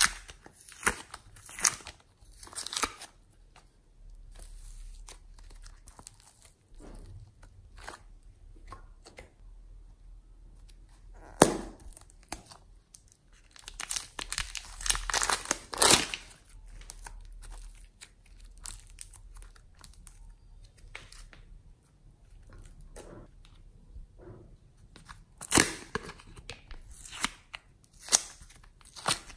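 Handling of plastic clay packaging: scattered sharp plastic clicks and snaps from a clear plastic clay case and its lids, the loudest a single snap a little before halfway. About halfway through there is a stretch of crinkling, tearing plastic film as a lump of soft purple clay is worked out of its wrapper.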